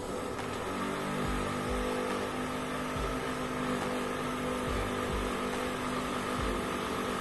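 A power tool from nearby house renovation work starts up and runs steadily with a droning hum for about seven seconds, then stops.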